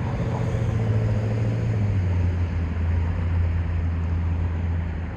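Road traffic: a vehicle's engine hum, steady and low, that drops in pitch about two seconds in as it passes.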